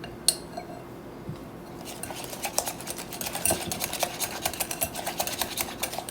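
A utensil stirring almond-flour batter in a bowl, clinking rapidly against the side, starting about two seconds in after a single clink near the start.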